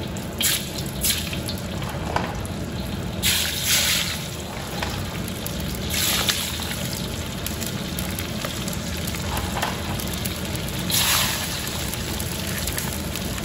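Pieces of marinated pork skin dropped by hand into smoking-hot oil in a wok for a second frying to puff them up. The oil sizzles steadily, with louder bursts of hissing each time a handful goes in, several times over.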